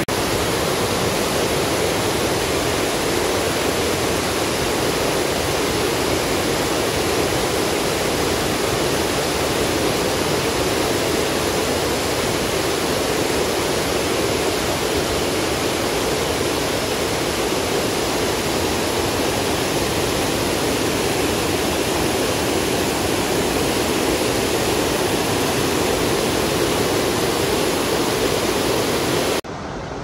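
Tomara Waterfall, many strands of spring water falling about 15 metres over a rock face, giving a steady, loud rush of water that stops abruptly near the end.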